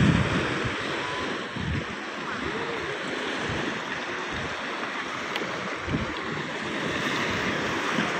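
Small waves washing onto a sandy shore, with wind buffeting the microphone in low rumbling gusts.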